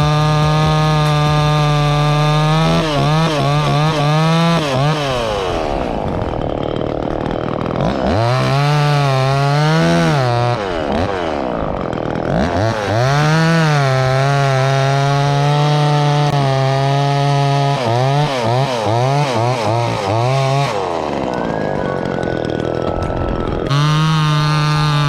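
Two-stroke chainsaw running at high revs. Its pitch drops and wavers three times as it cuts into wood, with quick throttle blips between the cuts.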